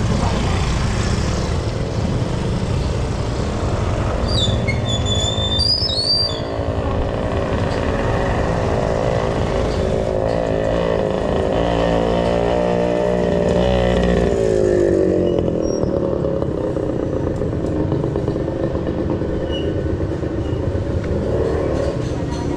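Motorcycle and tricycle engines running in street traffic, with one passing close, its engine note rising and then falling about ten to fifteen seconds in. A few short high squeaks sound about four to six seconds in.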